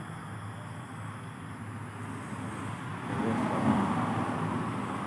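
Road traffic: a steady hum of vehicles, with one approaching and growing louder about three seconds in.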